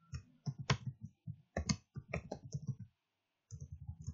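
Computer keyboard being typed on: a quick string of keystroke clicks, breaking off briefly about three seconds in before a few more keys.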